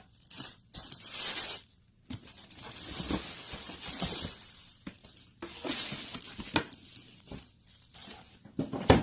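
Black wrapping paper in a sneaker box rustling and crinkling in irregular bursts as it is pulled away from the shoes, with a sharp knock near the end.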